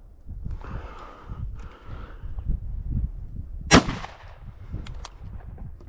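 A single shot from a 12-gauge side-by-side shotgun a little under four seconds in, a sharp crack with a short ringing tail, over a low rustling background.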